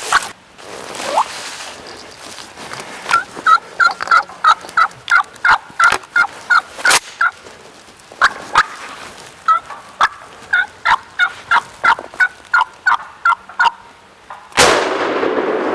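Wild turkey calling close by: two long runs of short, quick yelping notes, about four or five a second. Near the end comes a sudden loud bang that rings on for a moment.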